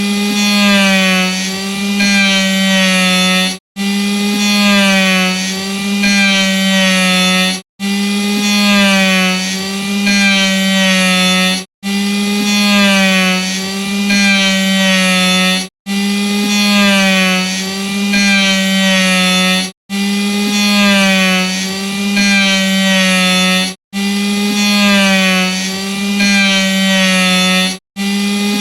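Electric saw running with a steady motor whine whose pitch wavers slightly up and down. The same roughly four-second stretch repeats over and over, each repeat separated by a brief break in the sound.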